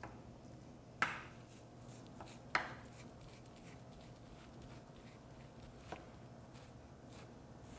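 Chef's knife mincing raw beef on a wooden cutting board: faint quick chopping taps, with two louder knocks of the blade on the board about one and two and a half seconds in, and a smaller one near the end.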